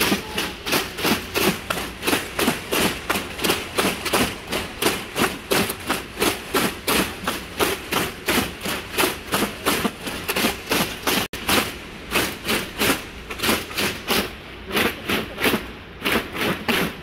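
A stadium crowd striking folding paper clappers in unison, a steady rhythm of about three sharp claps a second, beating time.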